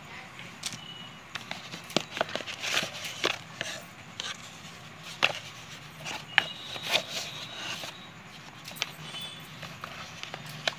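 Cardboard packaging of a trimmer box being handled: irregular clicks, taps and rustles as the cardboard insert is pulled out of the box, with a few sharper knocks in the middle.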